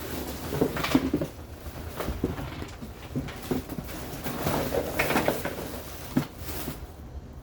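Hands handling plastic tail light parts and bulb sockets: irregular clicks, knocks and rustling, busiest about a second in and again around five seconds.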